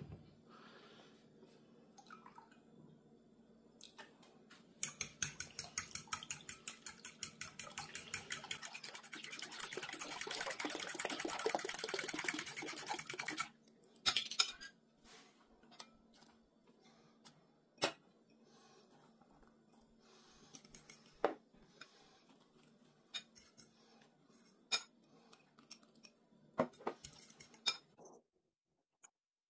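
Fork whisking eggs in a glass bowl: rapid clinking of the fork against the glass that gets denser and louder, then stops abruptly about halfway through. After that come scattered single clinks and taps.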